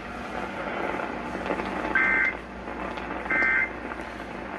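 EAS/SAME digital end-of-message signal from a radio alert receiver: three short bursts of two-tone data warble about a second apart, over radio hiss, marking the end of the alert broadcast.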